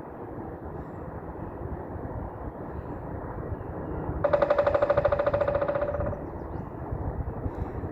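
Woodpecker drumming: one rapid, machine-gun-like roll of taps lasting just under two seconds, with a ringing note under the strikes, about four seconds in. A steady low rumble runs underneath.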